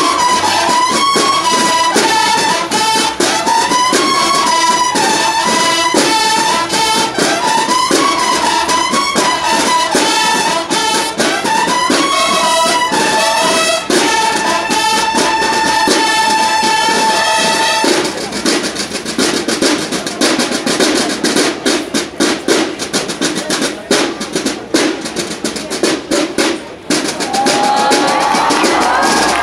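Drum and brass band playing: brass horns carry a melody over snare drums for about the first eighteen seconds, then the snare drums keep playing a fast cadence on their own, and a rising horn note comes in near the end.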